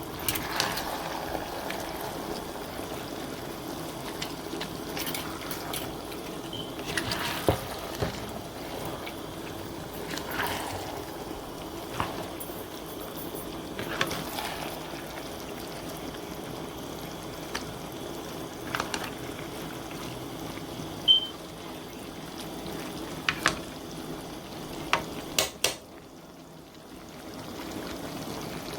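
Pot of chicken and bora curry bubbling steadily as it cooks, with scattered clinks and knocks of metal against the pot.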